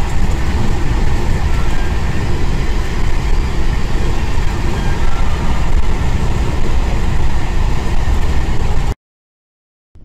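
Steady rumble of engine and road noise inside a moving road vehicle at speed. It cuts off suddenly about nine seconds in.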